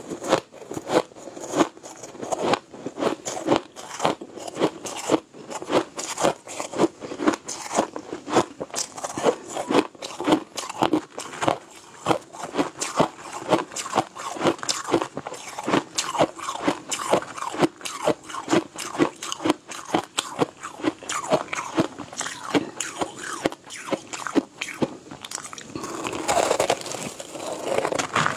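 Soft, snow-like ice being crunched and chewed in the mouth: rapid crisp crunches, a few every second. Near the end the crunching turns denser and more continuous.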